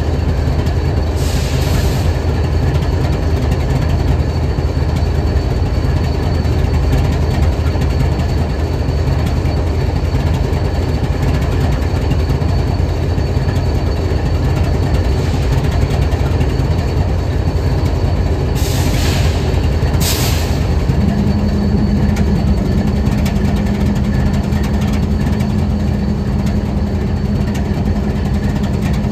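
Diesel-electric freight locomotive idling, a steady low drone with no change in engine speed. Two brief hisses come about two-thirds of the way through, and a steady higher hum joins in just after and carries on.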